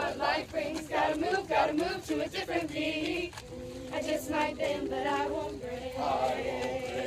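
A group of young voices singing together without instruments, with several long held notes in the middle and near the end.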